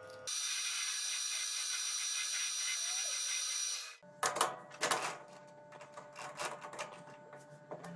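A machine tool running steadily with a high-pitched sound, cutting off about four seconds in. Then several sharp metal clicks and clinks as a small steel part is set into the jaws of a three-jaw lathe chuck.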